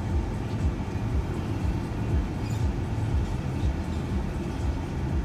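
Steady low rumble of road and engine noise inside a shuttle van's cabin while it is driving.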